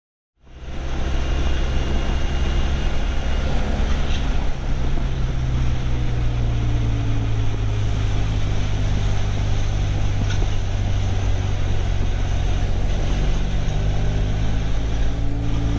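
Motorcycle riding at a steady speed: a constant engine hum under wind and road noise, cutting in abruptly about half a second in.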